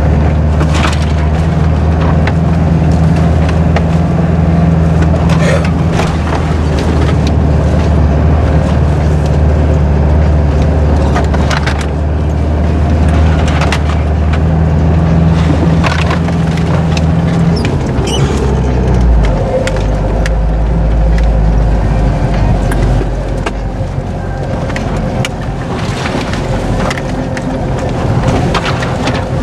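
Off-road 4x4's engine running under load, heard from inside the cabin, with branches and brush scraping, snapping and knocking against the body as it pushes through; about two-thirds of the way through, the engine note drops lower.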